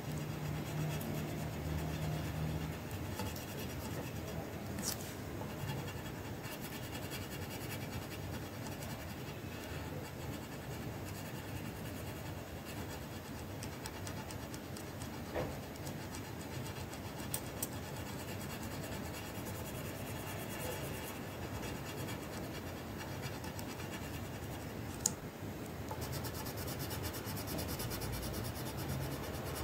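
Red coloured pencil scratching steadily on paper in rapid shading strokes as an area is filled in. A few brief sharp ticks stand out.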